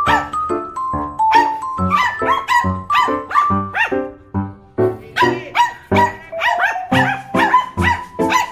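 Several Shih Tzus barking repeatedly, mixed with background music that has a steady beat.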